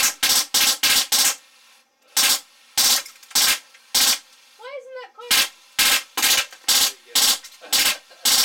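Drozd Blackbird electronic BB gun, running on high-pressure air, firing a rapid string of single shots at about two to three a second. The string breaks off briefly after about a second and again around the middle. A short voice sound is heard in the second break.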